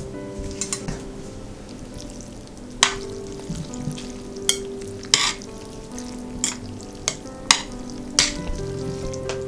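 Irregular sharp clicks and taps of utensils against dishes during food preparation, about half a dozen, over steady background music.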